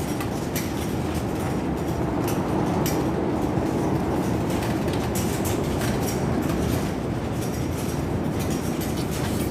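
Strong windstorm wind rumbling steadily, with scattered light clicks and knocks.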